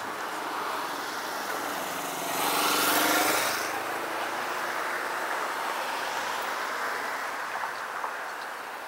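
A car drives past close by, loudest about three seconds in, its engine note falling as it goes by, over the steady hum of street traffic.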